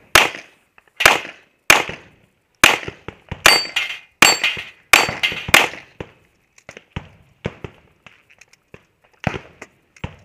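Pistol shots: about eight sharp cracks at an uneven pace, one every half-second to second, each with a short echo. Then quieter clicks and knocks, with two louder knocks near the end.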